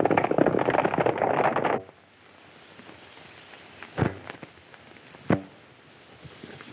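Horses galloping, a dense clatter of hooves that cuts off abruptly about two seconds in. Then come two sharp gunshots, a little over a second apart.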